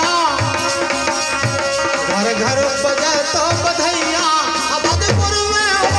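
Live Indian folk music: a hand drum keeps a steady beat under a melody on harmonium, and the low drum strokes grow heavier near the end.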